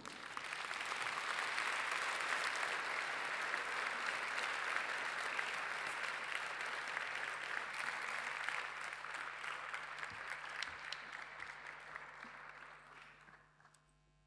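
Large audience applauding, holding steady and then dying away near the end.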